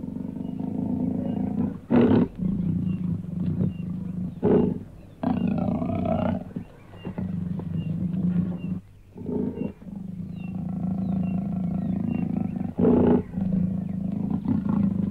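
Big cat growling and roaring: long, low growls broken by several louder, short roars.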